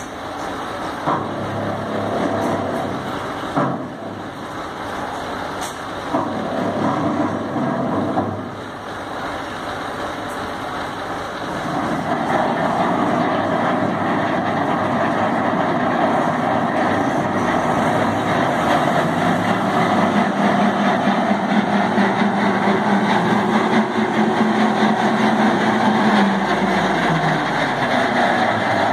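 Tractor's diesel engine running. It picks up to a louder, steady higher speed about twelve seconds in, and its note falls away near the end. A few sharp knocks sound in the first several seconds.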